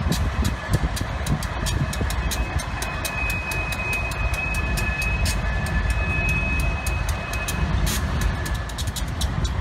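Diesel locomotives rumbling in a rail yard, with quick regular clicking over the rumble and a thin, steady high whine from about three to eight seconds in.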